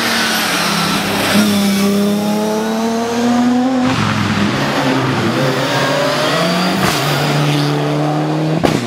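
Rally car engines accelerating hard, their pitch climbing as they rev. The sound comes in several short takes that cut abruptly from one car to the next, about every three seconds.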